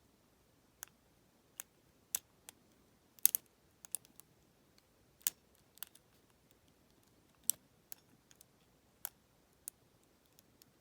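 Lock pick clicking and ticking against the pin stack inside a Federal PL90PE padlock's keyway: about a dozen sharp, irregular metal clicks, some close together around three and four seconds in.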